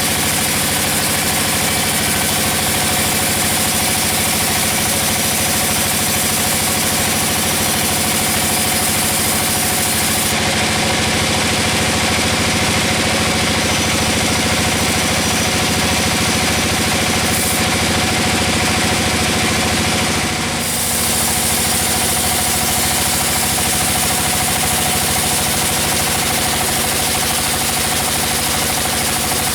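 Sawmill machinery running steadily with a constant engine-like drone. There is a brief dip and a change in tone about twenty seconds in.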